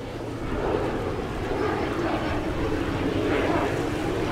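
A steady, low engine drone that slowly grows louder.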